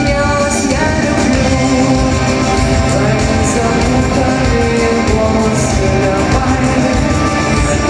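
Live rock band playing a song at a concert, guitars and drums with singing over them.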